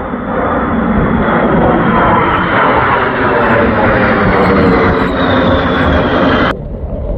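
A pair of F/A-18 Hornet-family fighter jets flying overhead: loud jet roar with a high whine that slowly falls in pitch as they pass. It cuts off abruptly near the end to a quieter rumble.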